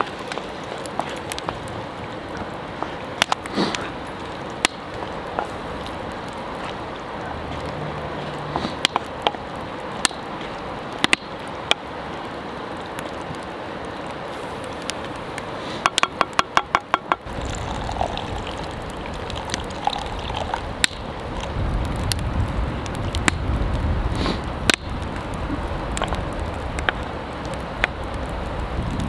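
Wooden spoon stirring and scraping thick chili in a cast-iron Dutch oven over a crackling wood campfire: a steady hiss with scattered sharp clicks and knocks. About halfway through there is a quick run of about ten clicks, and then a low rumble comes in.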